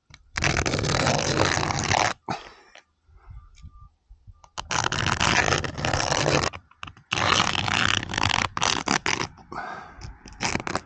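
A nail being dragged across the roof surface to scratch a circular cut line, in long scraping strokes. There are three of about two seconds each, then a few shorter scratches near the end.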